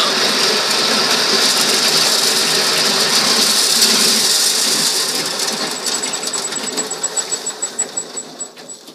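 Motor-driven corn sheller running with a dense mechanical rattle of kernels and cobs being shelled. After about five seconds it winds down: the rattle fades and a regular ticking slows as the machine coasts to a stop.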